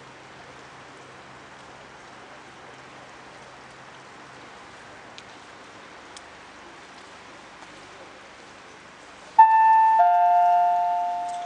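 Faint steady outdoor hiss, then about nine seconds in a public-address chime rings out over loudspeakers: a bell-like note followed by a lower one, slowly dying away, the signal that an announcement is about to be made.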